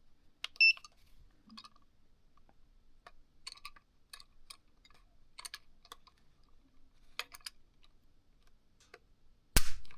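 Dry-firing a Girsan Witness2311 Brat pistol against a trigger pull gauge: a short electronic beep about half a second in, small clicks of handling and slow trigger take-up, then a sharp click near the end as the trigger breaks and the hammer falls.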